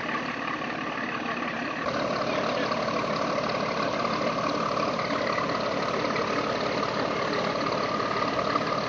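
Boat engine running steadily, a little louder from about two seconds in.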